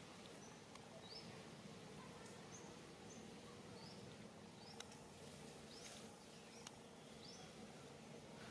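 Faint outdoor background with small birds chirping: short, high, rising chirps about every second, and a few soft clicks.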